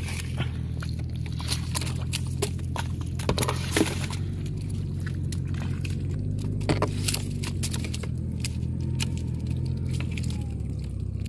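Live prawns and small fish rustle and flick against a plastic crate as a hand stirs through them, with irregular sharp clicks and rattles, a few louder ones about a third of the way in and again past the middle. A steady low hum runs underneath.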